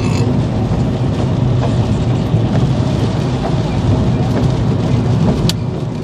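Steady rumble of road and tyre noise inside a moving car's cabin, with a single sharp click about five and a half seconds in.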